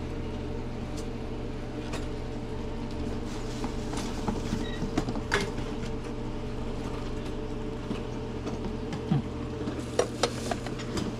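Steady low hum of background noise with scattered light clicks and knocks.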